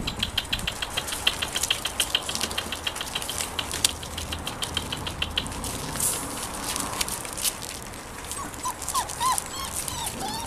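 Irish Terrier puppies whimpering and yipping in short high squeals, several in the last couple of seconds. Before that, for about the first five seconds, a fast run of light clicks.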